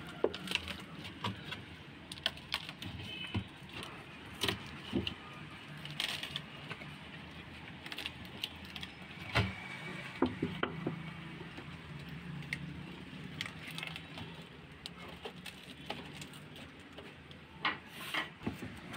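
Thin embossed metal inner liner of a chest freezer crinkling and crackling as it is peeled back by hand from the foam insulation, in quiet, scattered clicks and crackles.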